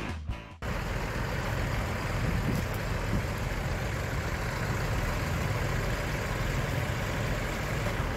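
Several tractor engines idling together, a steady low rumble.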